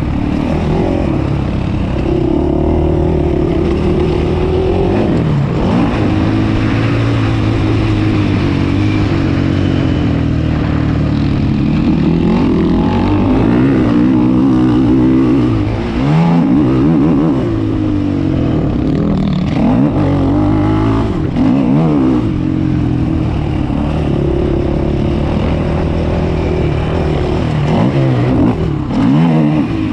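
Sport quad's engine heard from onboard, revving up and falling away again and again as the rider accelerates, shifts and rolls off the throttle, with a few brief drops in power.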